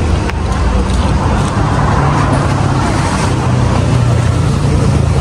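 A motor vehicle's engine running close by, a steady low hum under continuous road noise.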